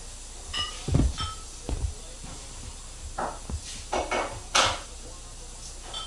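A kitten pouncing on sofa cushions: soft low thumps as it leaps and lands, and swishes of a feather wand toy whipped through the air, with two brief high squeaks near the start.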